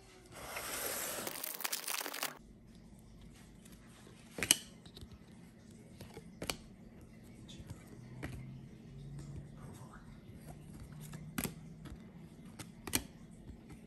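Foil trading-card pack tearing open with a crinkling rustle for about two seconds near the start, then a few sharp clicks as the chrome Panini Prizm baseball cards are flicked through one by one.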